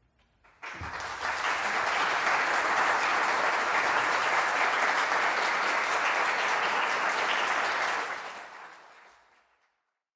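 Audience applauding, starting abruptly about half a second in, holding steady, then fading away over the last couple of seconds.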